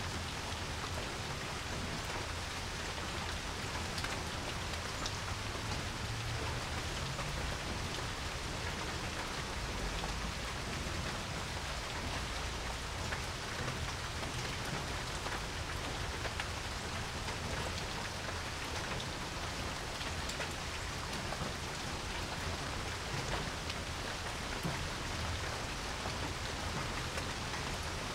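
Steady rain falling on a porch, with individual drops ticking sharply now and then.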